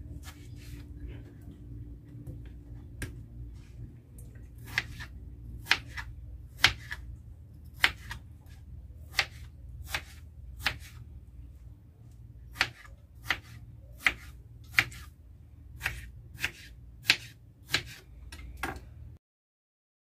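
Kitchen knife chopping peeled potatoes on a plastic cutting board: sharp, irregular knocks about one a second, coming a little quicker in the second half, over a steady low hum. The sound stops abruptly near the end.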